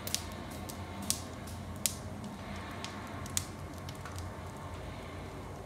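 Firewood burning in a wood stove, crackling, with about four sharp pops standing out over a low steady background.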